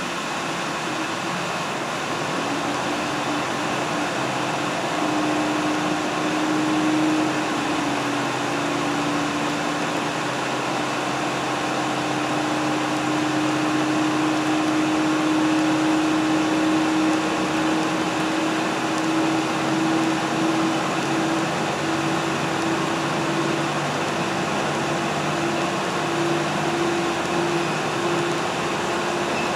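Running noise of a diesel train heard from inside the carriage: a steady rumble with a droning engine tone. The tone dips about seven seconds in, then climbs slowly as the train picks up speed.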